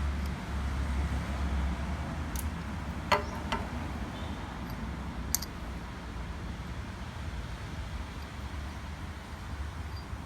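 A few short, sharp clicks of a Bergeon 4266 watch case-opening tool being handled, four in all, over a steady low hum.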